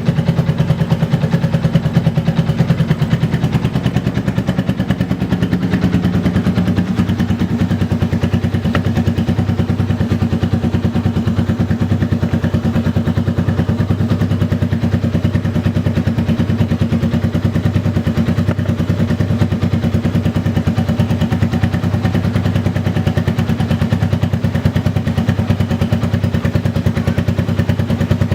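Yamaha Vixion's single-cylinder four-stroke engine idling steadily through an R9 aftermarket exhaust routed under the frame, a fast even putter of exhaust pulses.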